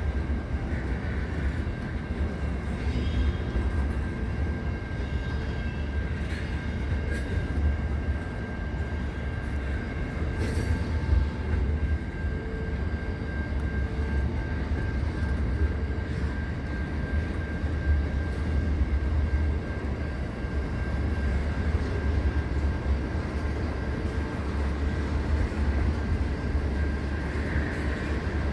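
Long freight train of container flat wagons and tank wagons rolling past at steady speed: a continuous rolling rumble with a thin steady high whine running through it and a few short clanks.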